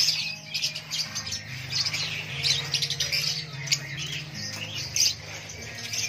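Caged lovebirds chattering: a dense, unbroken run of short, high, sharp chirps and squawks from many birds at once, over a low steady hum.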